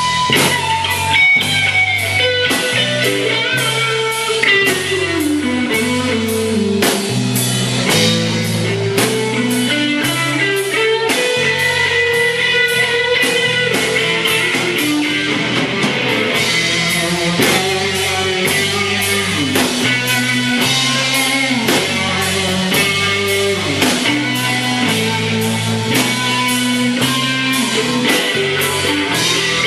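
Live rock band playing an instrumental passage: guitar melody lines over a moving bass line and a steady drum beat.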